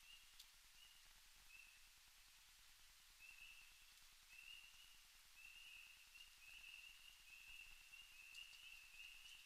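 Near silence: faint night-time outdoor ambience with a thin, high trill that comes and goes and grows steadier toward the end, and a few faint ticks.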